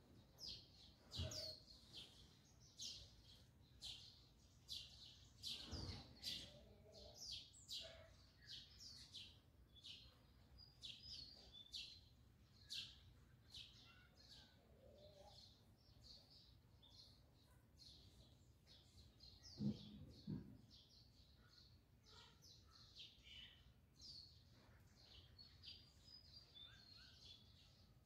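Faint chirping of small birds, many short high calls coming steadily one after another. A few dull knocks, the loudest a pair about twenty seconds in.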